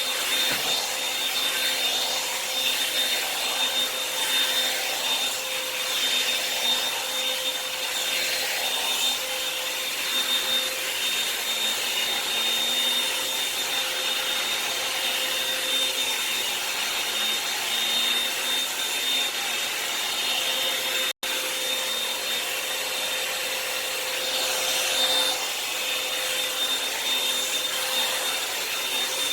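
Revlon hot-air dryer brush running steadily: the fan motor whirs with a steady high whine while the brush is worked through damp hair. The sound cuts out for an instant about two-thirds of the way through.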